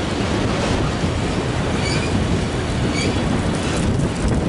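Freight train's autorack cars rolling past close by: a steady rumble of steel wheels on the rails, with a couple of brief faint high squeaks about two and three seconds in.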